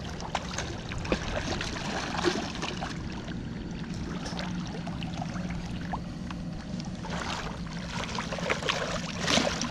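Hooked redfish thrashing and splashing at the water's surface, with water lapping at the bank; the splashing gets louder near the end.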